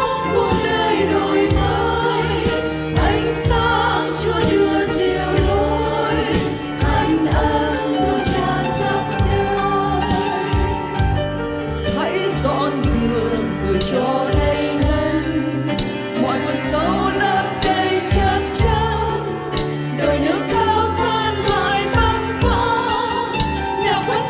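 A church choir singing a Vietnamese hymn in parts.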